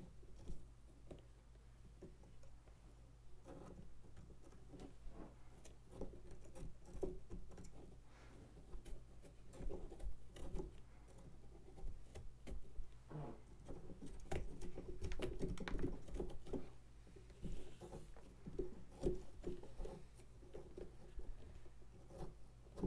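Irregular scraping and small clicking of hand tools cutting and scraping pumpkin flesh, busiest in the middle stretch, over a low steady hum.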